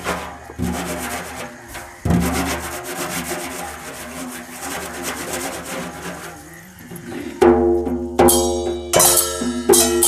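Folk ritual music: drums beating a fast, dense rhythm, joined about seven seconds in by a held, piercing wind-instrument melody over sharp drum strokes.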